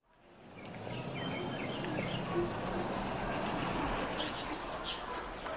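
Outdoor ambience fading in over the first second: a steady low rumble and hiss with birds chirping and whistling over it.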